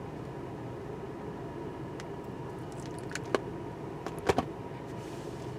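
Steady low background rumble with no speech, broken by a few light clicks and taps between about two and four and a half seconds in, the sharpest two near the end.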